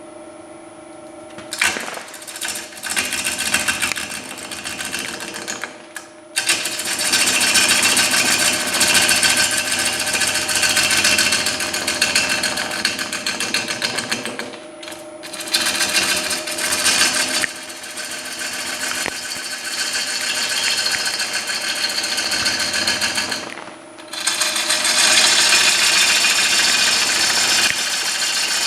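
A bowl gouge cutting into a wet hard-maple bowl blank spinning on the Stratos XL wood lathe, with a harsh, rapidly pulsing scrape over the steady hum of the lathe's VFD-driven motor. The cut stops briefly about 6, 15 and 24 seconds in as the tool is lifted, and the motor hum carries on through the pauses.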